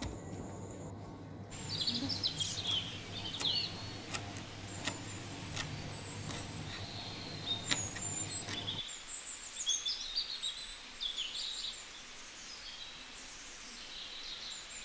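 Kitchen knife chopping fresh coriander on a wooden chopping board, heard as scattered light taps, while birds chirp repeatedly in the background.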